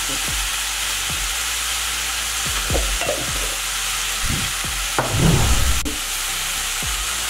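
Green beans and onions sizzling in hot oil in a kadai, a steady frying hiss, with a few short knocks and scrapes around the middle.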